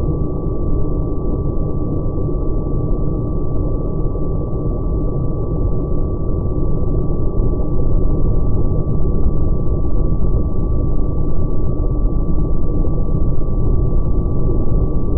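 Wind rush and the steady drone of an R/C trainer airplane's electric motor and propeller in flight, with a constant whine at a fixed throttle. It is heard through the muffled, low-fidelity microphone of a camera riding on the plane.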